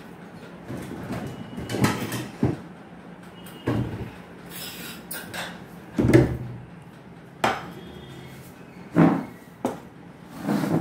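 A series of separate knocks and thuds, about eight in all, the loudest about six seconds in: dishes and a plate being moved and set down on a wooden table.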